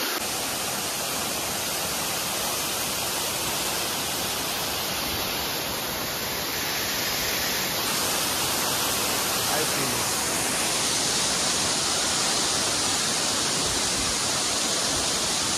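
A waterfall, with water rushing steadily, getting slightly louder about ten seconds in.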